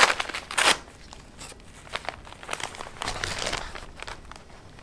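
Paper wrapper of a gauze sponge pack crinkling and rustling as it is handled and opened. The rustling is loudest in the first second, comes again about three seconds in, then dies down.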